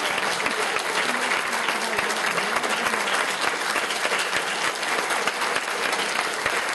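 A roomful of people applauding, with steady, dense clapping.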